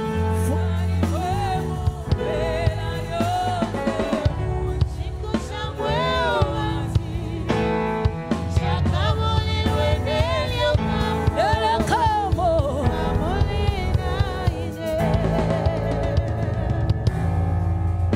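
Live gospel worship music: a woman singing a melodic line with vibrato over a band with drum kit and a steady bass.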